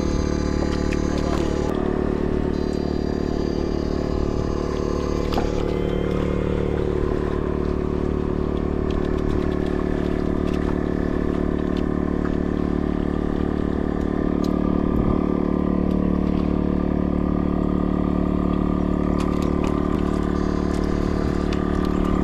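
A steady, unbroken engine-like drone at a constant pitch, with a few faint clicks and clatter over it.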